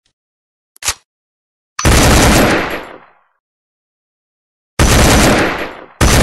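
AK-47 gunfire: a sharp click about a second in, then three loud bursts of automatic fire, near two seconds, near five and at six, each dying away over about a second.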